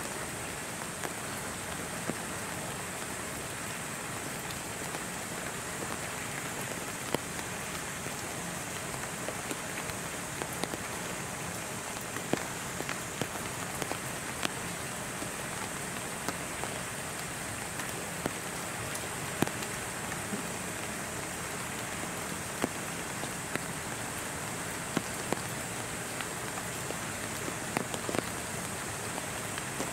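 Steady rain falling, with scattered drops ticking sharply now and then.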